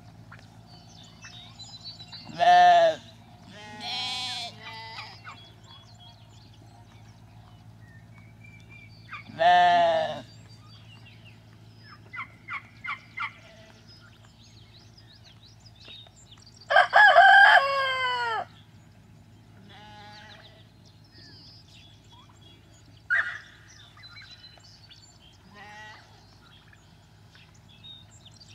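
Farm animals calling in a pen: a few loud short calls spaced several seconds apart, and one longer call about two-thirds of the way through, the loudest of them. A quick run of four short notes falls in between.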